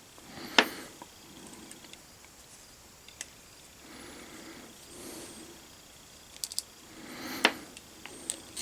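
Small metal parts of an old rusty compass clicking and clinking as it is handled and worked apart, with softer scraping and rubbing between the clicks. The sharpest clicks come about half a second in and about seven and a half seconds in.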